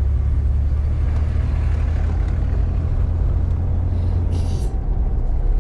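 Steady low rumble of a car's engine and road noise heard from inside the cabin while driving, with a brief hiss about four and a half seconds in.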